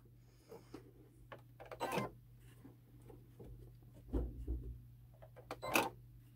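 Light clicks and taps of hands and a wooden stick handling fabric in the hoop of a stopped embroidery machine, over a faint steady hum. There are louder knocks about two seconds in, a dull thump about four seconds in, and a sharper knock near the end.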